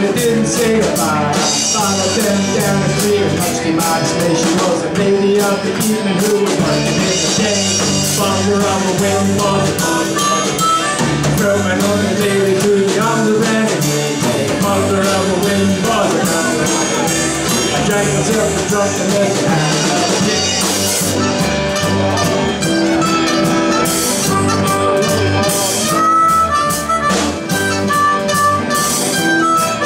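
Live bar band playing a song on electric guitars and drum kit, with a harmonica played through a hand-held microphone and some singing. Long held harmonica notes come in near the end.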